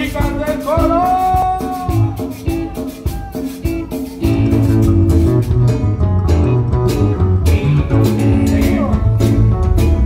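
Live band playing Latin dance music: a sung line over electric guitar, bass, drums and hand percussion, with the full band coming in louder about four seconds in.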